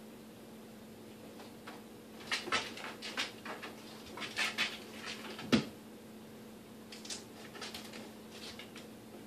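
Bengal cat rolling about on the wooden top of a cabinet: scattered scrapes and scuffs of claws and body on the wood, with one sharp thump about halfway through.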